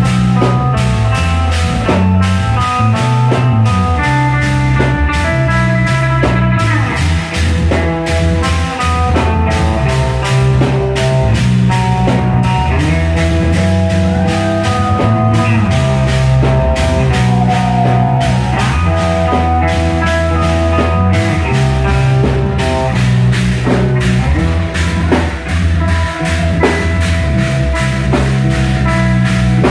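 Live rock band playing an instrumental with electric guitars and a drum kit, a heavy bass line running underneath.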